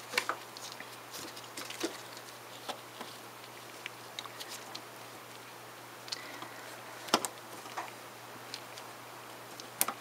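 Small clicks and taps as a plastic automotive relay, the fuel pump relay, is handled by its socket in the relay panel. A sharper click comes about seven seconds in and another near the end.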